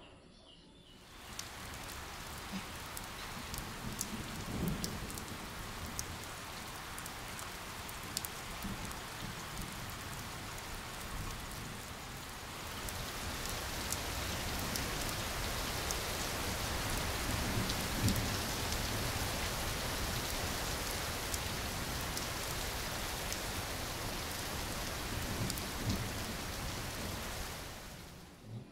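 Steady heavy rain falling, with separate drops striking close by. It grows heavier about halfway through, and a few low rumbles sound under it.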